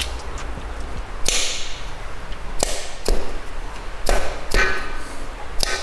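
A mallet knocking the main bearing caps of a Mazda MX-5 1.6 engine block down into place: about six sharp knocks at irregular intervals, some ringing briefly, seating the caps before their bolts are torqued.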